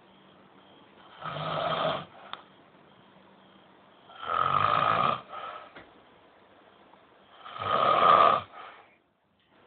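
Old man snoring in his sleep: three loud snores, each about a second long and about three seconds apart, with quiet breathing between them.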